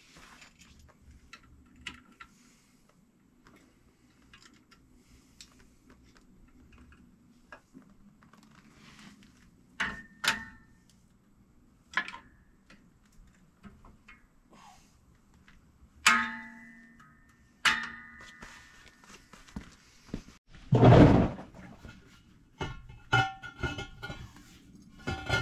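Metal clanks of new brake shoes and their return springs being fitted to a heavy truck's drum brake: scattered light taps, several sharp strikes that ring, one heavy thud about four-fifths of the way in, then a rattling clatter.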